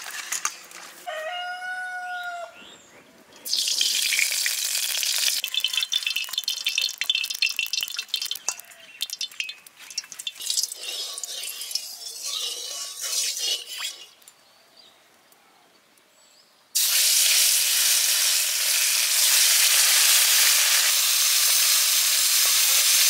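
Fish steaks and hot oil sizzling and crackling in a kadai, with spatula scrapes, then a loud, steady sizzle from the last few seconds on as shol (snakehead) fish steaks shallow-fry. Near the start, hands squelch through the spice-coated fish in a steel bowl, and a rooster crows once.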